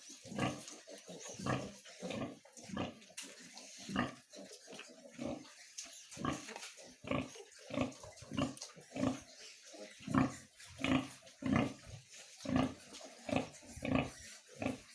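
Pig grunting in short, regular grunts, about two a second.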